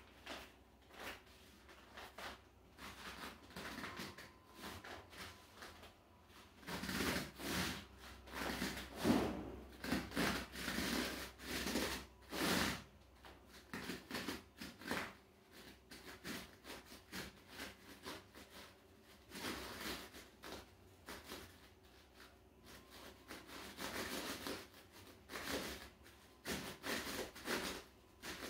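Irregular rubbing and creaking of bare feet shifting on an inflatable rubber balance disc as the weight moves during balance exercises.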